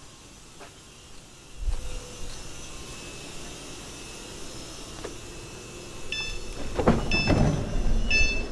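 Electric train's passenger doors at a station stop: a warning beeper sounds three times, about a second apart, while the doors slide and clatter open over the last two seconds.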